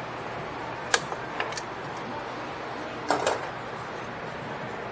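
Sharp metallic clicks and clinks of pliers and rear drum-brake shoe hardware being handled: one loud click about a second in, a few lighter ones just after, and a short clatter around three seconds in.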